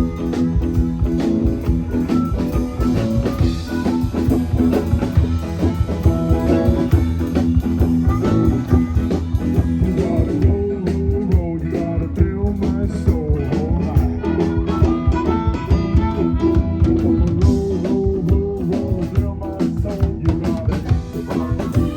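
A live band playing blues-rock with guitar and drums.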